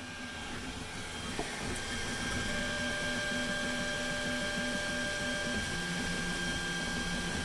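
Voron 2.1 3D printer printing: its stepper motors whine in several steady tones that shift in pitch as the toolhead changes speed and direction, over a steady fan hiss. One short tick sounds about a second and a half in.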